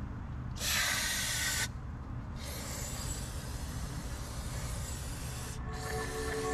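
Spray-like hissing in three bursts: a loud one about a second long near the start, then two longer, quieter ones, over a steady low rumble. Music with pitched notes comes in near the end.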